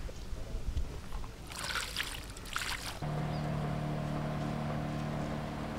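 A knife scraping as it cuts scoring slashes into the thick flesh of a large barramundi. About three seconds in, this gives way abruptly to a boat's engine running with a steady hum.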